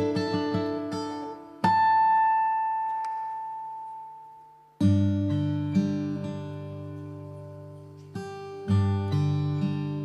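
Steel-string acoustic guitar playing a slow song introduction. A few quick picked notes give way to chords left to ring and fade: one about two seconds in dies away almost to nothing before the next chord sounds near five seconds in, and two more follow near the end.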